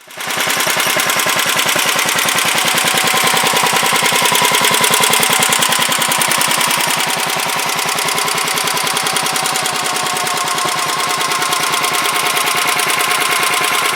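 Sears Suburban garden tractor's engine running steadily, with a rapid, even firing beat.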